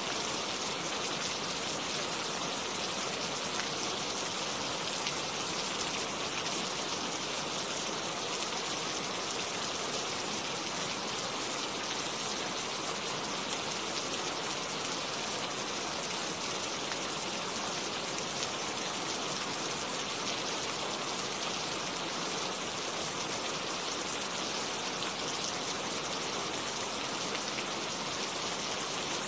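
Rain falling steadily, an even hiss of many drops with no thunder.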